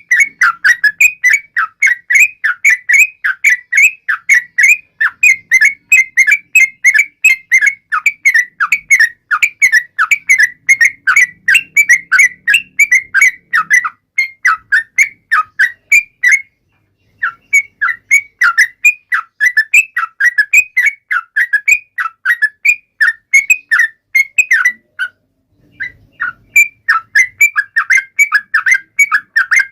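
Sooty-headed bulbul (trucuk) singing a fast chattering run of short whistled notes, about four a second, breaking off briefly twice.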